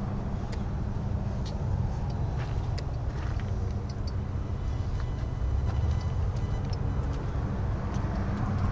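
2001 Ford Excursion's 7.3-litre Power Stroke turbo-diesel V8 idling steadily, with a few faint clicks over the low rumble.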